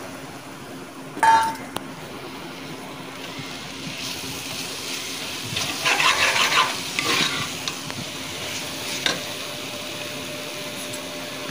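Onions, masala paste and freshly added tomatoes sizzling in a pressure cooker pot while being stirred with a spoon. There is a brief ringing clink of the spoon on the pot about a second in, and louder scraping stirring in the middle.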